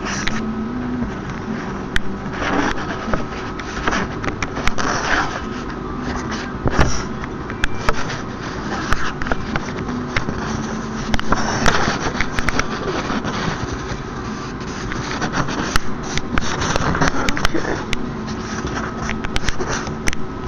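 Scraping and irregular light clicks of a small screwdriver and phone parts being handled while screws are driven into an iPhone 3GS, over a steady low hum.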